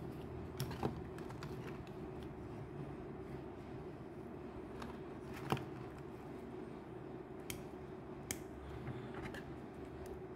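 Plastic tubes of lipstick-shaped candy clicking and tapping against each other and the cardboard box as they are handled, a handful of sharp clicks with the loudest about halfway through, over a steady low hum.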